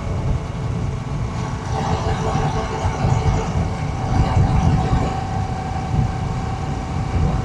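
Royal Enfield Shotgun 650's 648 cc parallel-twin engine and exhaust running at a steady cruising speed under way, with a rough low rumble of wind on the microphone.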